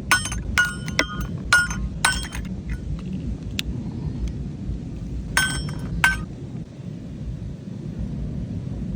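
Small kitchenware clinking sharply, each clink ringing briefly: a quick run in the first two seconds and two more around five to six seconds in. Beneath it is a steady low rumble of storm wind.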